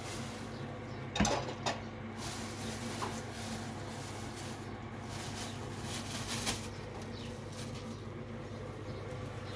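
Plastic bag rustling and a couple of small knocks as things are handled, over a steady low hum; the sharpest knock comes about a second in.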